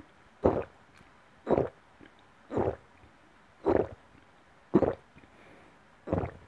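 A person gulping down a drink from a glass, six swallows about a second apart, each a short throaty gulp.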